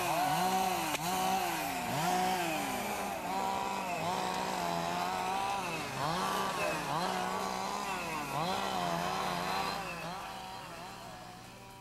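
Two-stroke chainsaw running at high revs, its pitch dropping and climbing back roughly once a second. It fades out near the end.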